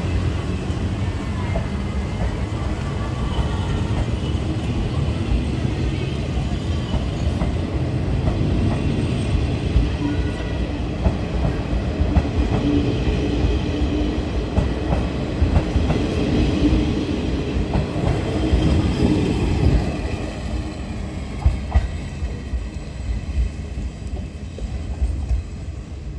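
Train running through the station: a steady rumble with wheels clicking over rail joints, dropping away and getting quieter about twenty seconds in.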